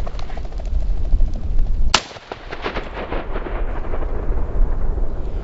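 A single shotgun shot about two seconds in, over wind rumbling on the microphone, followed by a rapid crackle of small clicks.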